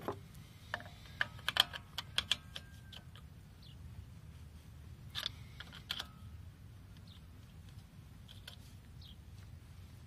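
Light metal clicks and taps, a few ringing briefly, as a pry tool wedged in the rotor slot levers a Chevy Tahoe's front brake caliper to push its piston back. A quick run of clicks comes about a second in, and two more around five to six seconds.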